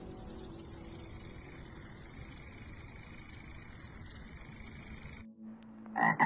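An insect's continuous high-pitched trill, finely pulsed and cricket-like, that cuts off suddenly about five seconds in. Right at the end a toad's croak begins.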